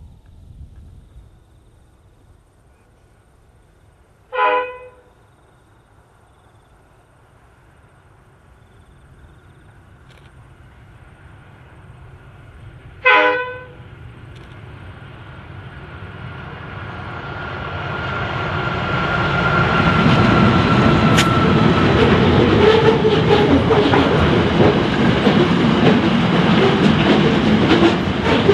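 Long freight train approaching and rolling past, with two short train-horn blasts, one about four seconds in and one about thirteen seconds in. After the second blast the rumble of locomotives and wagons builds up and stays loud, with wheels clicking over rail joints.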